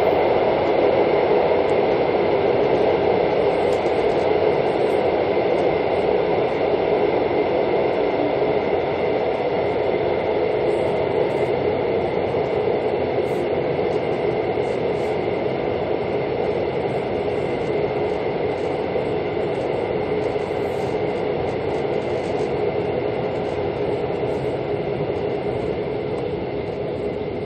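Mugunghwa-ho passenger train heard from inside the carriage, running steadily on the rails with a constant rumble and wheel noise. It grows gradually quieter through the stretch as the train slows for the next station.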